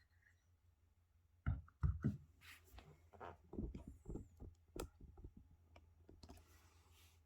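Hard objects being handled: an irregular run of short clicks, taps and knocks, the two loudest about a second and a half in.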